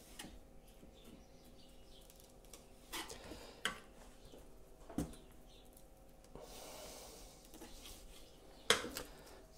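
Kitchen knife on a wooden chopping board while filleting a garfish: a few quiet sharp taps, the loudest near the end, with a couple of seconds of soft scraping just before it as the blade is run along the fish.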